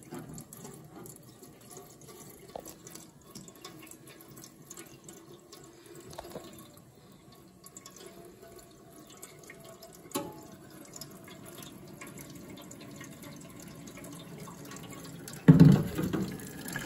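Water poured in a thin stream from a glass coffee decanter into the top of a Bunn VPR pour-over coffee maker, a faint trickling and dripping. A loud knock near the end.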